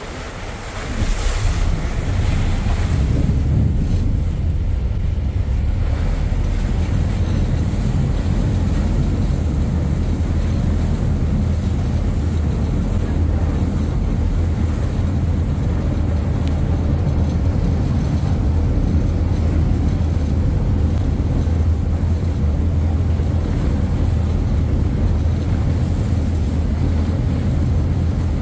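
A ferry's engine running with a steady low drone, over the rush of its churning wake and wind buffeting the microphone. The drone swells about a second in, then holds steady.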